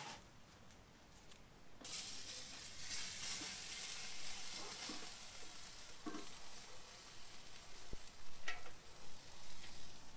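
Steady hiss from a lit propane-fired Char-Broil Big Easy smoker, starting about two seconds in, with a couple of light metal clinks as the basket of fish goes in and the lid is handled.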